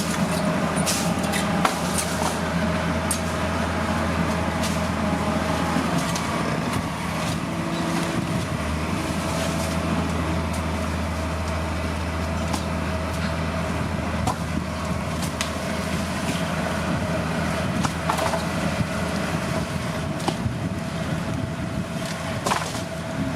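Heavy diesel earthmoving machinery running steadily, a deep engine drone with a steady whine over it and scattered clanks and knocks.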